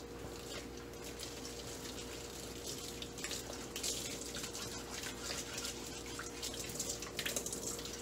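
Kitchen faucet running into a stainless steel sink, water splashing over hands as a soapy foam pet-fountain filter is rinsed; the splashing gets louder about three seconds in.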